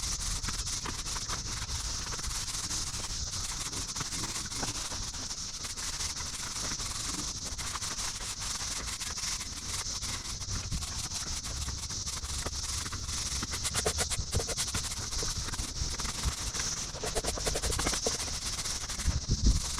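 Stiff-bristled broom scratching and sweeping across paver stones, over a steady high hiss, with a few louder knocks near the end.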